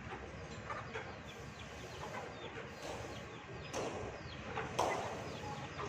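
Chickens clucking, with many short chirps of small birds over them, and two short sharp noises about four and five seconds in, the second the louder.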